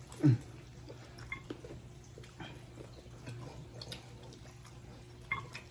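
Eating sounds from chewing spicy chicken wings: scattered small wet clicks and smacks. Just after the start comes one short, louder sound that falls in pitch. A steady low hum runs underneath.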